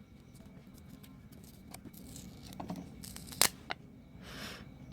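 Small parts of a phone LCD assembly being handled and pried apart: faint scraping and rustling with two sharp clicks close together about three and a half seconds in.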